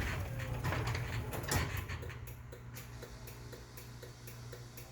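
Chamberlain C3000 chain-drive garage door opener running, the door reversing back up after the safety sensors were blocked. The clatter of the moving door fades after about two seconds, leaving a steady low motor hum and a regular ticking of about four a second.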